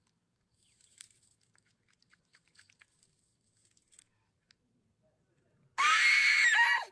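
Faint, crisp crunching and chewing clicks of a cucumber being bitten, scattered over a few seconds. Near the end comes a loud burst of noise, about a second long, with a wavering pitched tone running through it.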